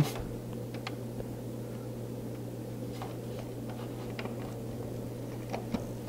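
A steady low background hum with a few faint clicks and rustles as a front-panel USB header cable is handled and pressed onto a motherboard's pin header.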